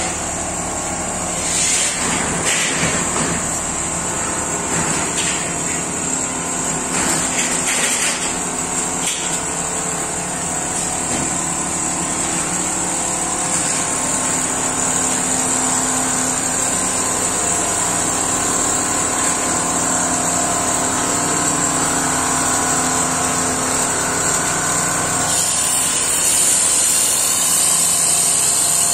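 Richpeace single-head computerized quilting machine running steadily, its sewing head stitching through a padded comforter as the gantry moves. A few brief sharper clatters sound in the first several seconds.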